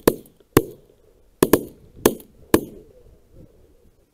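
A volley from several shotguns firing in quick succession: six sharp shots in under three seconds, two of them almost together about a second and a half in.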